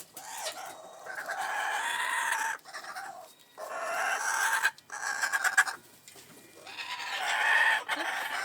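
Laughing kookaburras calling in loud laughing bouts of a second or two each, about three bouts with short pauses between.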